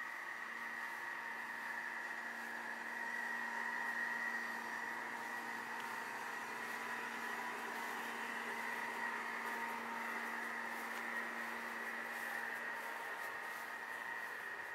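Steady hum with a constant whine over hiss, unchanging, with no knocks or breaks.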